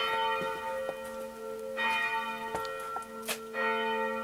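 Church bell tolling: three strokes about two seconds apart, each leaving a long ringing hum of several steady tones.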